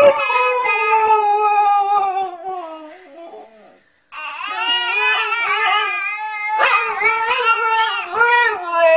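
Siberian husky howling: two long drawn-out howls, the first sliding slowly down in pitch, then a brief break about four seconds in, and the second wavering up and down.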